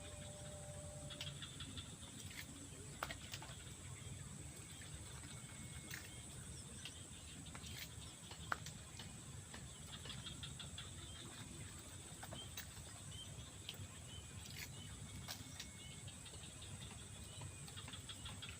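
Faint lakeside outdoor ambience: a steady high-pitched hiss with scattered short chirps and light clicks over a low rumble.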